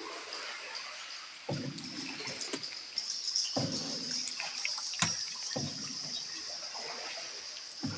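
Water sloshing and splashing as a boat's paddle dips and pulls through a cave river, in regular strokes about every two seconds. A steady high-pitched hiss runs behind them, with a few faint clicks.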